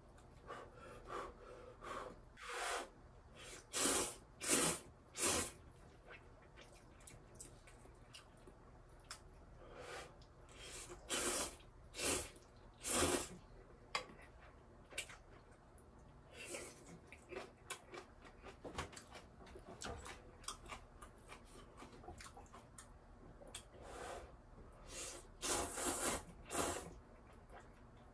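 Instant ramen noodles being slurped in loud bursts, two or three in quick succession several times over, with quieter chewing and wet mouth clicks between.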